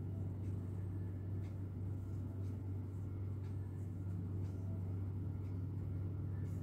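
Steady low hum with a few faint, light ticks scattered through it.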